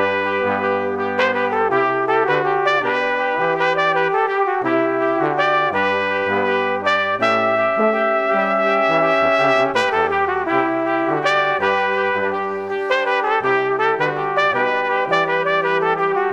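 Instrumental background music with a brass melody over a stepping bass line, playing at a steady level.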